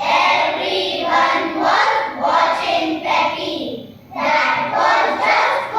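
A group of children's voices speaking together in unison in a choral recitation, in short rhythmic phrases with a brief pause about four seconds in.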